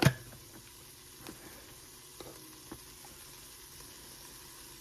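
Onion and garlic sizzling steadily in olive oil in a pot, with a sharp knock right at the start and a few light ticks after it.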